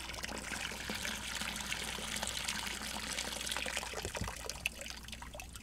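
Muddy rinse water pouring and trickling out of a tipped plastic bucket of live mud crabs, easing off near the end as the bucket drains.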